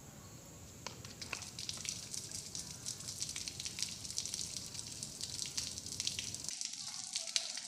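Water jet from a garden hose fitted with an empty pen-barrel nozzle, spraying upward and falling back on leaves and ground: a steady hiss with a dense, irregular patter of drops that picks up about a second in.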